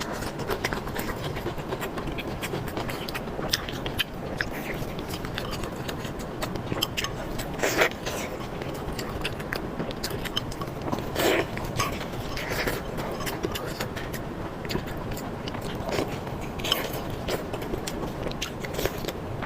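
A person eating close to the microphone: steady chewing with small clicking mouth sounds and a few louder bites or slurps, over a steady background hiss.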